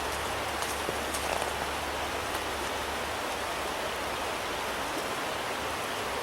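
Stream water running steadily over rocks, an even rushing hiss with a few faint splashy ticks.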